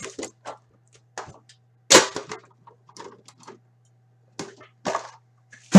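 Sharp clicks and knocks of trading cards and their tin packaging being handled on a tabletop, with a louder knock about two seconds in and the loudest near the end, over a steady low hum.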